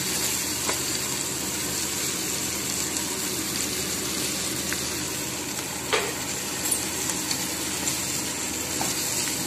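Cauliflower and peas sizzling in oil in a frying pan, stirred with a metal slotted spoon that now and then scrapes and taps the pan, with one sharp knock about six seconds in.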